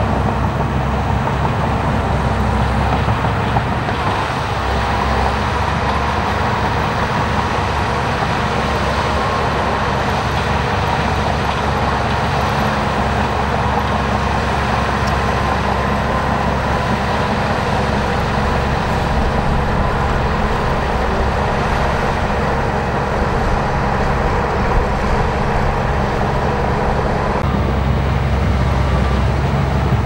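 Shantui crawler bulldozer's diesel engine running steadily while it pushes soil with its blade. The sound shifts, heavier in the low end, a few seconds before the end.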